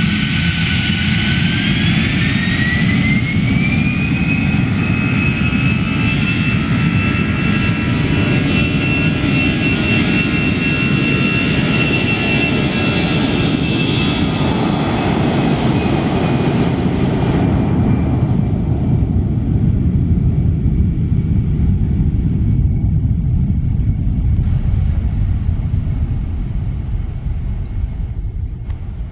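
Batik Air Airbus A320's twin jet engines spooling up to take-off thrust. A whine rises in pitch over the first few seconds, then holds steady over a deep roar as the airliner rolls down the runway. The whine fades out after about eighteen seconds, leaving the roar.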